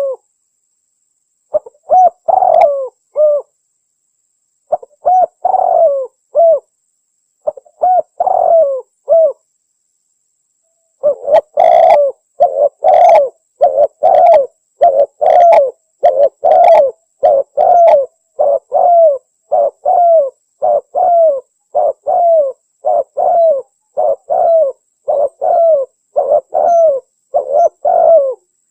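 Spotted dove (tekukur) cooing in the Javanese 'anggunan' song style. Three short phrases of coos with pauses between them, then about eleven seconds in a long unbroken run of repeated coos.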